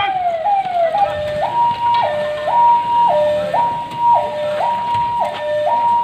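Police vehicle siren sounding: a quick falling sweep repeated about twice a second, which about a second in switches to a two-tone hi-lo pattern alternating between a high and a low note every half second.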